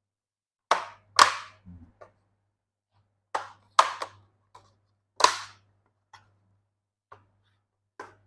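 Plastic bottom cover of an Asus X441BA laptop being pressed shut, its clips snapping into place: a string of sharp snaps, loudest in the first five seconds, then a few fainter clicks.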